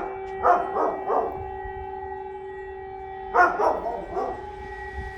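Electronic civil-defence sirens sounding a steady, unbroken test tone. A dog barks over it in quick runs: several barks in the first second or so, and another run about three and a half seconds in.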